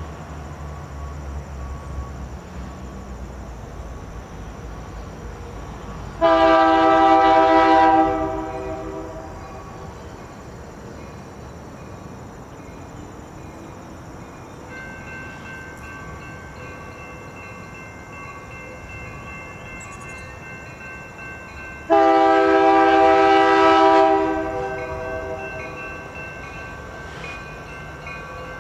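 Air horn of an approaching CN diesel freight locomotive (CN 5793, an EMD SD75I) sounding two long chord blasts about 16 seconds apart, each about two seconds long and ringing on afterwards, over the steady rumble of the locomotives. About halfway through, a steady high ringing starts.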